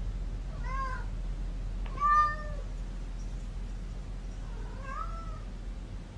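Domestic cat meowing three times, short calls that rise and fall in pitch, the second one the loudest.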